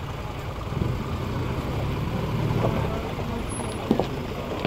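Light truck's engine running at low revs, a steady low hum that grows louder in the middle, with two sharp clacks near the end.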